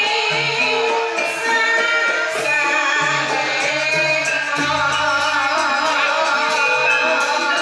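Javanese gamelan playing a Banyumasan gending: bronze pot gongs and metallophones ringing out a steady interlocking melody, with a singer's voice wavering over it. A deep note comes in about halfway through.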